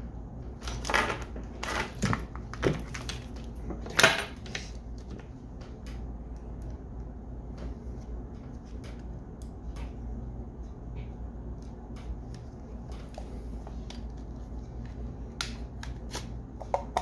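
Clicks and rattles of a plastic foregrip bipod being handled: a quick run of knocks in the first few seconds, the loudest about four seconds in, then only light scattered clicks, with a few more near the end as it goes back against the rifle's rail.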